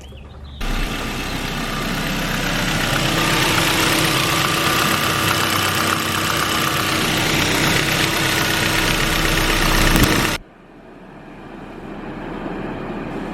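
2006 Ford Focus engine running steadily at idle, with a loud, even whoosh over the engine note. It starts abruptly about half a second in and cuts off suddenly near the end.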